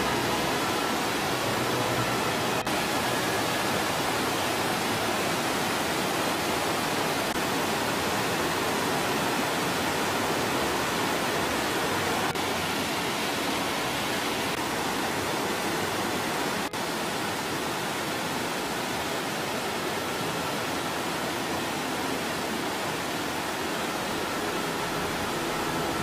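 Mountain stream cascading over rocks and small waterfalls: a steady rush of water.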